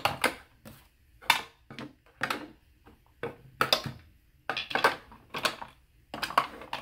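Plastic makeup compacts, tubes and a brush clicking and knocking against a clear acrylic organizer drawer as they are picked up and set down by hand: an irregular run of small sharp taps, a dozen or more.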